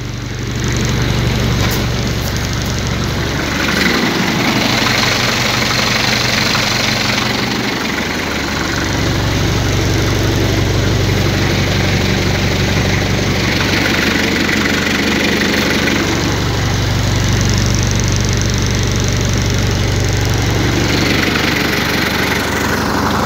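Hanomag-Henschel F45's non-turbo 2.8-litre four-cylinder diesel idling, just caught after a hard cold start that needed long glow-plug preheating. Its low engine note fades and returns every few seconds.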